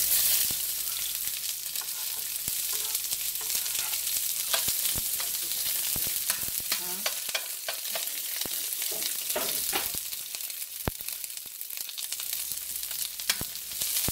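Sliced onions sizzling in hot olive oil in a cast-iron skillet, loudest as they hit the oil at the start, with the scrapes and taps of a metal spatula stirring them.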